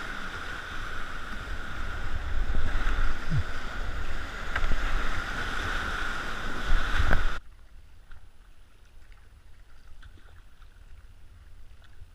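Rushing whitewater with wind buffeting the microphone and a few sharp knocks, cutting off abruptly about seven seconds in to a much quieter, faint background hiss.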